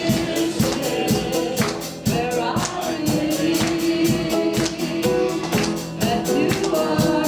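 Live worship band playing an upbeat song with singing, steady percussion on the beat and sustained chords.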